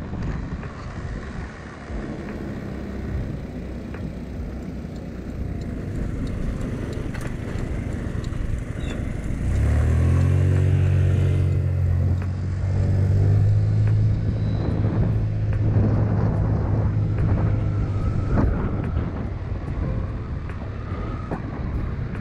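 Honda Elite CH80 scooter's 80cc single-cylinder four-stroke engine running on the move, with wind rushing over the microphone. About ten seconds in, a steady low engine drone comes up and holds for several seconds before easing back.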